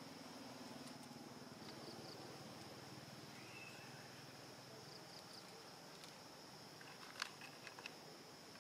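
Insects droning steadily at one high pitch in the background. A faint low hum fades out over the first few seconds, and a few sharp clicks come about seven seconds in.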